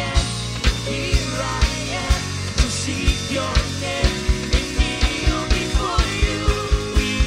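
Live worship band playing rock-style music, with a kick drum at about two beats a second that doubles to about four a second around four seconds in, building up.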